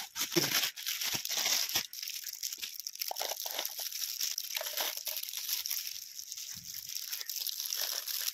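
Thin plastic sweet wrappers crinkling and tearing as small packets are ripped open by hand, with a steady run of small crackles and clicks.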